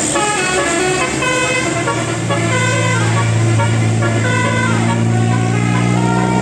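Indonesian 'telolet' musical bus horn playing a quick melody of short stepping notes. About two seconds in, a steady low hum joins it and carries on under the tune.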